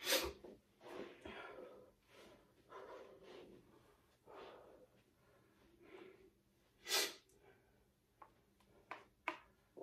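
A person breathing hard after jumping rope: heavy breaths about once a second, with one sharper, louder breath about seven seconds in.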